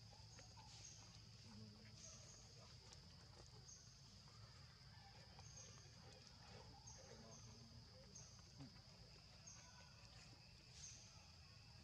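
Near silence outdoors: a faint steady high insect drone with short high chirps repeating about once a second, over a low hum.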